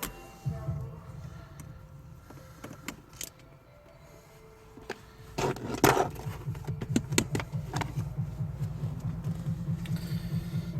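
Ratchet with a 10 mm socket and extension clicking rapidly as it backs off the nuts holding the shifter's sound-deadening cover, after a few metal clinks and a louder knock about five seconds in.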